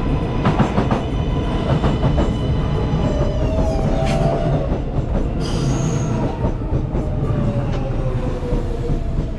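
L train subway car running on the rails: a steady rumble with sharp clacks from the wheels, and thin high tones that slowly fall in pitch through the second half.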